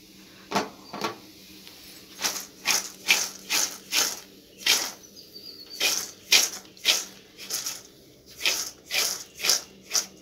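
A slotted metal spoon stirring and tossing dry fried flattened-rice (aval) mixture in a steel pan: short scraping rustles, about two a second, in uneven runs with brief pauses.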